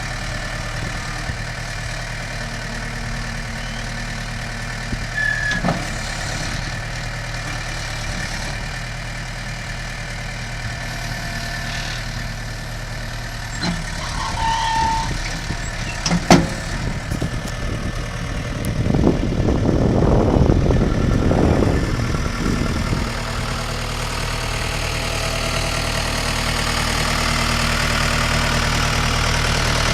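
Case 1845C skid steer's four-cylinder diesel engine idling steadily, with a few sharp clanks. About two-thirds of the way through comes a louder, rushing stretch of a few seconds.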